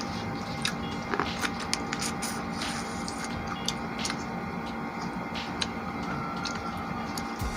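Close-up eating of seafood: wet chewing and squishing with many irregular small clicks and cracks of shell, over a steady low hum.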